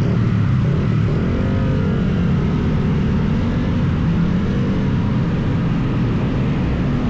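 Yamaha XSR 155's single-cylinder engine running through its stock exhaust while riding, a steady low engine note whose pitch wavers slightly, with wind and road rush.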